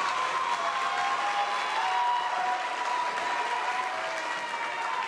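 Crowd applauding, with several long, steady high notes held over the clapping.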